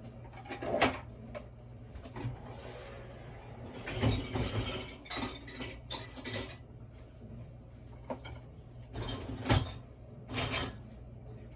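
Kitchen handling sounds: dishes and utensils knocking, clinking and scraping in several short bursts over a low steady hum.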